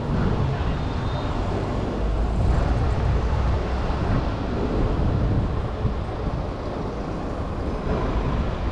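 Steady low rumble of city street traffic noise, with no distinct events standing out.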